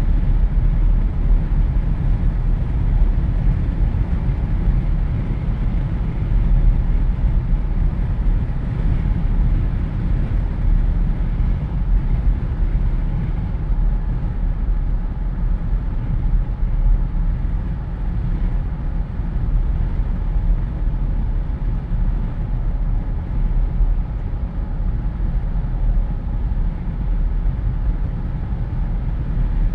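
Jeep Wrangler driving with the windows down, heard from inside the cabin: steady low wind buffeting mixed with road noise.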